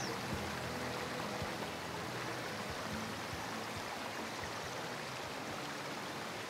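Steady rush and babble of a shallow stream flowing over stones.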